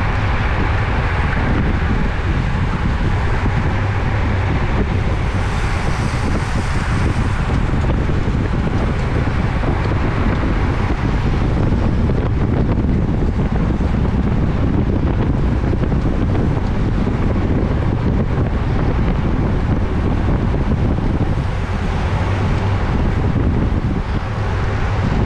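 Steady wind rush on a bike-mounted camera's microphone while riding at racing speed, heavy and rumbling in the lows. About six seconds in a brighter hiss rises for a couple of seconds.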